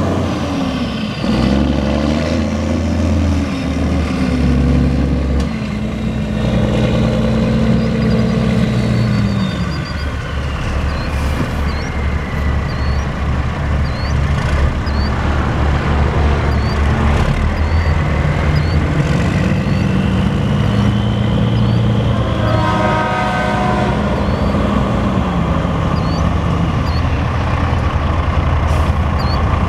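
A 2005 Peterbilt 379 truck's diesel engine runs steadily as the tractor drives slowly around. Its pitch drops about ten seconds in, rises again around twenty seconds and drops back a few seconds later.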